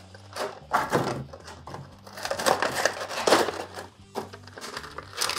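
Plastic blister packaging crinkling and crunching in irregular bursts as an action figure is handled out of its pack.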